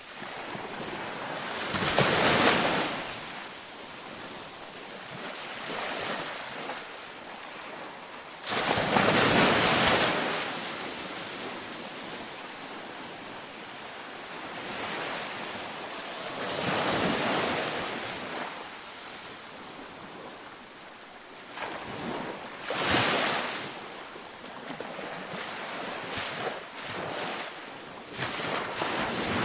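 Ocean waves breaking on a beach, with a wave swelling and washing out every several seconds over a steady surf hiss. The loudest breaks come about two seconds in and again around nine seconds.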